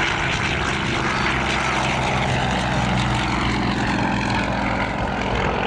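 Yakovlev Yak-52's nine-cylinder radial engine and propeller running at a steady pitch.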